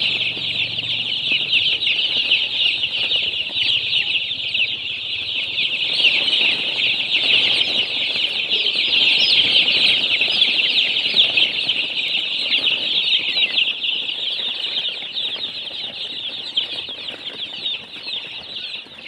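A large flock of baby chicks peeping all at once: a dense, unbroken chorus of high chirps that eases off slightly near the end.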